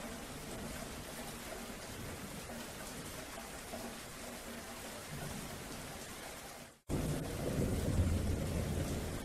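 Steady rain falling, with low rumbles of thunder. The sound cuts out for an instant about seven seconds in, then comes back louder with a deeper rumble.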